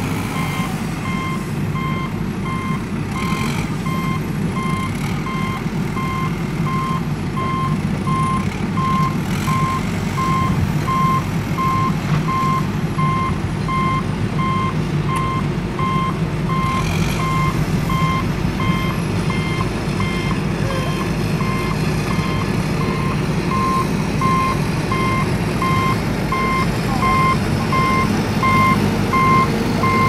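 Truck reversing alarm beeping at an even pace, one steady tone repeated, over the steady low rumble of a heavy truck engine running.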